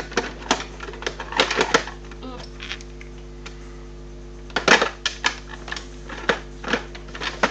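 Clicks, knocks and clattering of small objects being handled on a workbench, with the loudest knock a little over halfway through, over a steady electrical hum.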